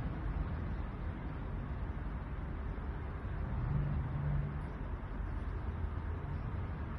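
Steady low rumbling background noise with no distinct crash or impact, and a short low hum about three and a half seconds in.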